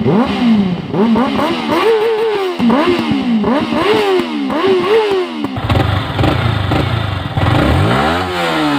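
Motorcycle engine revved in quick repeated blips, its pitch rising and falling about once every second. After about five and a half seconds the sound changes to a lower, rougher note with slower, longer revs.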